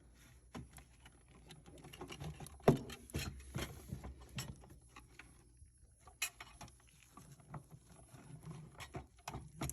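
Scattered light clicks, taps and scrapes of a refrigerator's plastic interior cover being handled and fitted into place by its tabs, with one sharper knock about two and a half seconds in.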